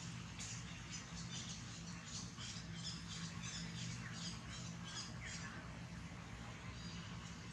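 An animal chirping: a quick run of short, high chirps, about three a second, that stops about five and a half seconds in, over a steady low hum.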